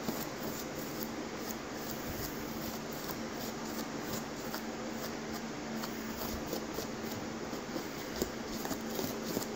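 Steady hum of an electric fan running, with a faint constant tone, and faint scuffs of a sponge brush working paint over sticky plastic sheeting.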